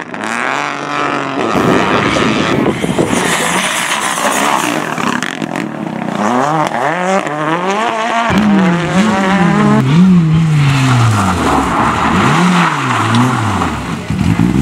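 Rally cars at stage speed in a string of short clips, with sudden cuts from one car to the next. The engines are revving hard, their pitch climbing and then dropping at each gearchange.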